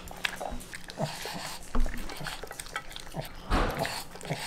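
A dog eating soft food fast from a stainless steel bowl: wet chewing and licking with many small clicks. There are two louder noisy bursts, about two seconds in and at about three and a half seconds.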